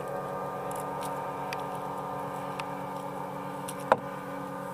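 A steady motor hum with several held pitches, with a few light clicks and one sharper knock near the end.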